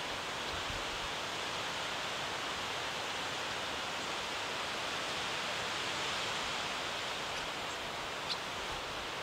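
Wind blowing through a conifer forest, a steady hiss of moving branches and needles. One short click near the end.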